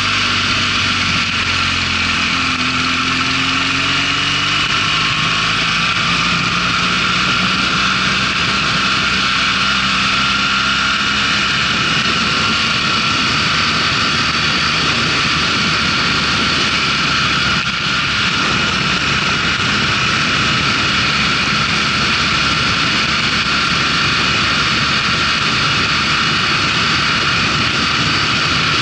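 Motorcycle engine pulling under acceleration with heavy wind rush over the microphone; the engine's pitch rises over the first few seconds, then the steady wind noise covers it as speed builds.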